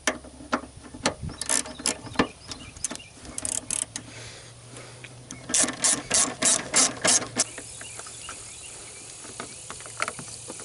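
Socket ratchet wrench clicking in short runs of sharp clicks as the 13 mm battery hold-down clamp bolt is undone, with the loudest run of about seven clicks in the middle.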